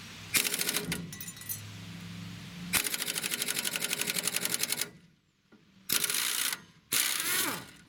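Pneumatic impact wrench hammering on a stubborn rusted brake bolt in four bursts of rapid blows, the longest about two seconds in the middle. The last burst trails off in a falling whine as the bolt comes loose.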